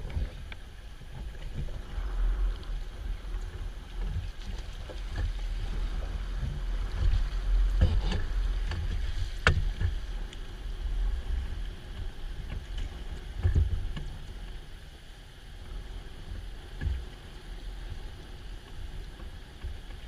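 Oars rowing an inflatable river raft: water splashing and lapping, with a few sharp knocks scattered through, over a steady low rumble.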